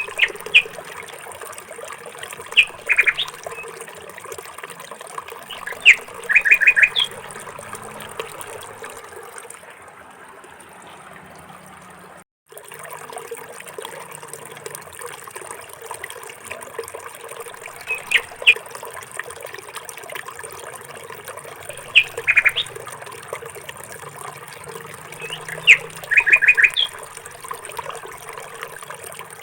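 Bird chirps: short high calls, some in quick runs of about four notes, over a steady background hiss, with a brief cut to silence about twelve seconds in.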